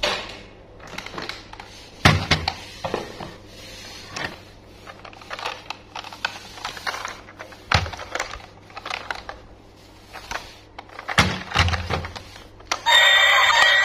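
Plastic toy train being handled: scattered clicks and rattles of its plastic body and wheels, with a few louder thunks as it is set down or knocked, about four in all. Music starts again near the end.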